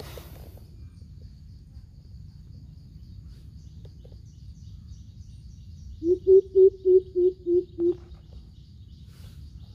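Greater coucal calling: a run of about seven deep, evenly spaced hoots, roughly three a second, starting about six seconds in.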